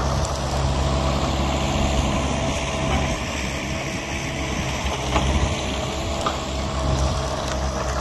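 Vermeer tracked mini skid steer's engine running steadily as the machine works a brush pile, with a steady high whine over the engine note.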